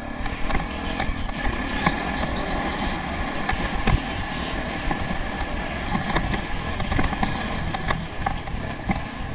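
Honda XR650R single-cylinder four-stroke dirt bike engine running while riding over slickrock, with wind rumbling on the microphone and occasional short knocks from the bumps.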